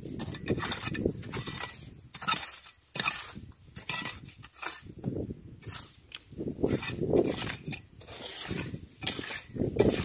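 Small metal hand rake scraping and clinking through wet gravel and shell grit in a run of irregular strokes, raking for clams.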